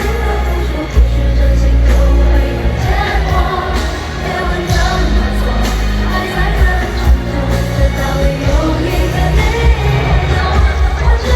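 Live pop ballad at an arena concert: singing over the band, with heavy bass from the PA, recorded from the floor among the audience.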